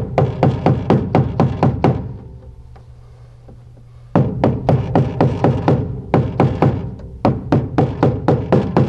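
Small hammer rapping the metal headliner gripper tabs on a classic VW Beetle's steel body, closing their teeth onto the headliner's plastic strip: quick strikes about six a second, each with a short metallic ring. There is a run of about two seconds, a pause of about two seconds, then a longer run with a brief break partway through.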